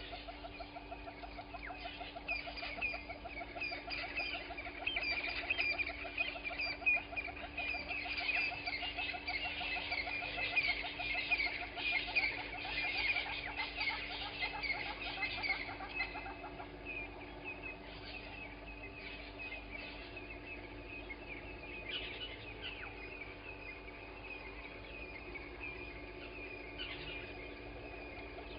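Dawn chorus of many wild birds chattering and calling over one another, densest in the first half and thinning out after about sixteen seconds.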